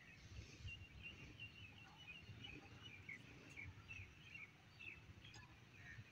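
Faint chirping of small birds, many short calls in quick succession, over a low rumble.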